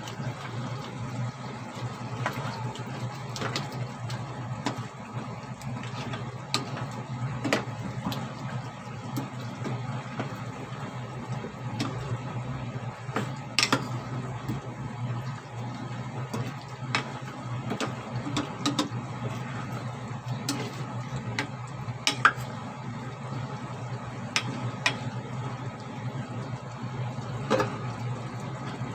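Wooden spoon stirring pork ribs in sauce in a saucepan, with irregular knocks and scrapes against the pot; the sharpest knocks come about halfway through and again a little later. A steady low hum runs underneath.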